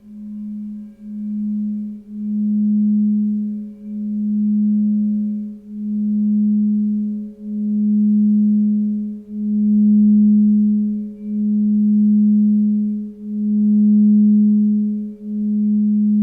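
Crystal singing bowls sounding a sustained low tone that swells and fades in slow, even waves about every two seconds, growing louder over the first few seconds, with a fainter steady higher tone above it.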